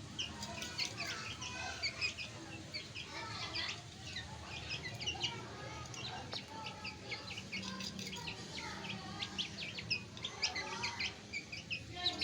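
A group of chicks peeping without a break, many short high chirps overlapping one another.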